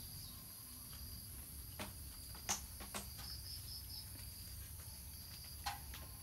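Insects chirping steadily at a high pitch, with a short run of quick pulses about three seconds in. A few sharp clicks fall at about two, two and a half, three and near six seconds.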